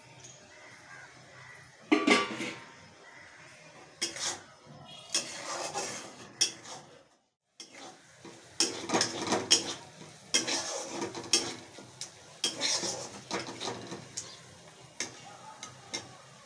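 Steel spatula scraping and clattering against a kadhai as frying masala is stirred, in irregular strokes. The sound drops out briefly about seven seconds in.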